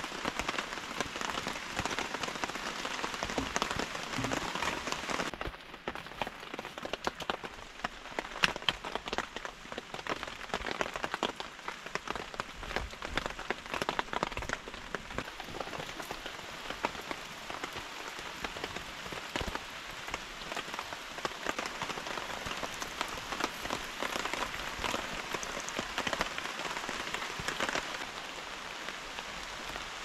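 Heavy rain falling, a dense patter of drops; the sound thins a little about five seconds in.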